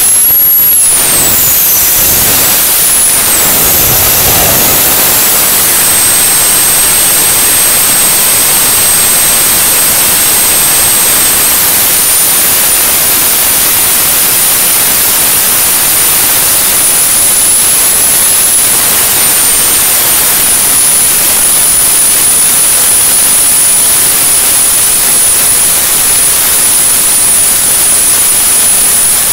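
Homemade jet engine running on its test stand with the afterburner lit: a loud, steady rushing noise with a high turbine whine on top. The whine wavers up and down over the first few seconds, then holds steady and steps up slightly about twelve seconds in.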